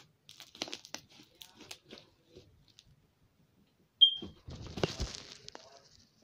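Slime being worked by hand: scattered small clicks and crackles, then a sharp snap with a brief squeak about four seconds in, followed by a couple of seconds of louder squishing and crackling.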